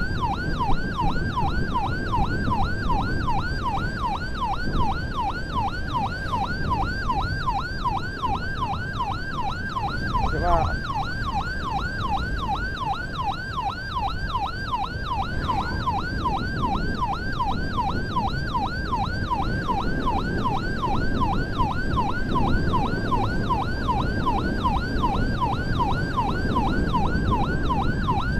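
Ambulance siren sounding continuously in a fast yelp, its pitch sweeping up and down about three times a second, over steady road and engine noise. A brief separate falling tone cuts in about ten seconds in.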